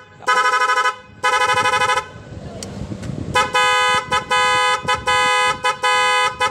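Motorcycle electric horn on a Kawasaki Barako, driven by a horn-pattern controller module: two blasts, a short pause, then a quick run of about five short beeps with brief gaps.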